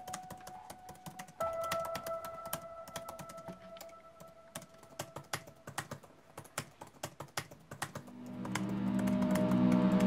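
Typing on a laptop keyboard: irregular, quick key clicks, over soft held music notes. From about eight seconds in, a low swell of music builds steadily louder.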